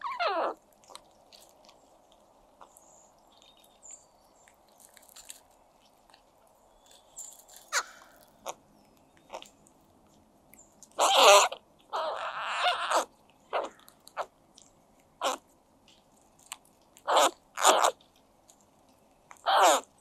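American crows feeding on egg yolk, giving a series of short, unusual calls a few seconds apart, several sliding steeply down in pitch, with light pecking in between. The uploader takes these calls for happy sounds made while eating a new food.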